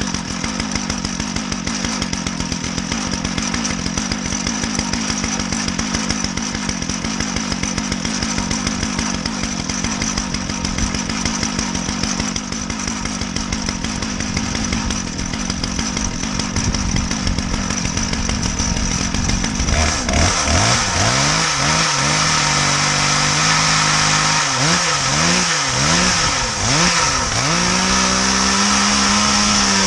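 Chainsaw running in a chainsaw mill, cutting into a box elder log with a steady drone. From about two-thirds of the way through, the engine's pitch rises and falls, then holds steady and higher near the end.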